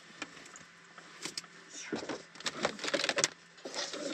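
Rustling of plastic packaging and a run of clicks and knocks as items are handled and put away on an overhead shelf inside a small van. The handling is busiest about two to three seconds in.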